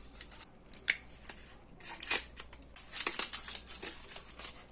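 Packaging being handled while parts are taken out of a box: scattered crinkling and rustling with light clicks and knocks, busiest in the second half.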